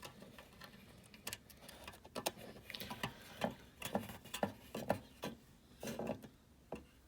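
A scattering of light, irregular clicks and taps: a header pin and a small ECU circuit board being handled and fitted together by hand.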